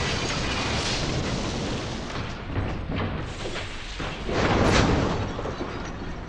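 Sound-effect train crash: a train running on the rails, then several knocks as it hits goods wagons, and a loud crash with a deep boom about four and a half seconds in that dies away.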